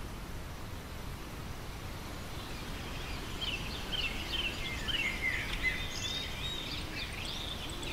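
Outdoor ambience: a steady low rumble, with small birds chirping and whistling from about three seconds in, growing louder.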